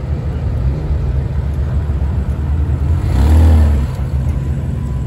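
Widebody BMW M4 driving slowly past, its twin-turbo inline-six running with a steady low rumble. About three seconds in, a brief burst of throttle makes it louder, the engine note rising and falling.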